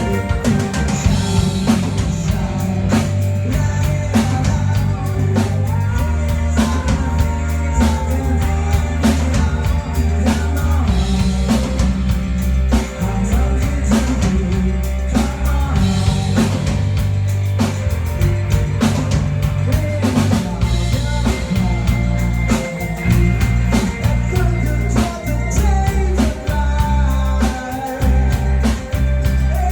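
A band playing a rock-pop song in rehearsal, a drum kit keeping a steady beat with snare and bass drum over a low bass line.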